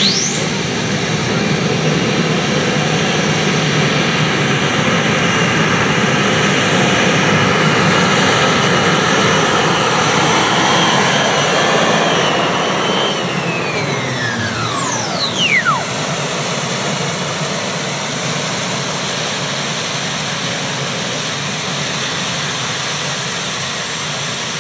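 Light modified pulling tractor's gas turbine engine running at full power under load, its whine climbing sharply at the start. About thirteen seconds in it is throttled back: the whine falls away, and a high tone keeps sliding slowly down as the turbine spools down.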